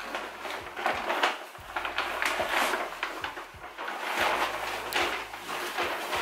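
Paper shopping bag and its tissue-paper packing rustling and crinkling as an item is rummaged out of it, a run of crisp crackles that keeps going throughout.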